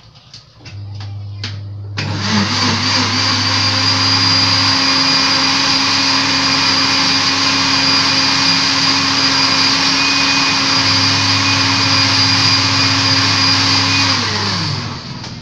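Electric blender blending frozen coconut with hot water to make coconut milk. It starts abruptly about two seconds in after a few light clicks, runs steadily with a high whine, and winds down with falling pitch just before the end.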